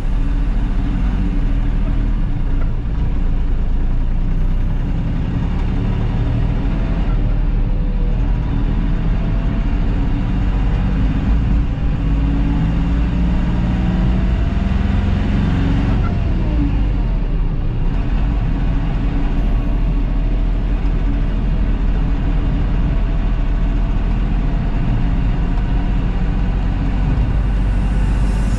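Cab sound of a DFSK Unimo light truck's 1357cc diesel engine pulling away and accelerating through the gears of its five-speed manual. The engine note climbs in each gear and drops back at the gear changes, twice.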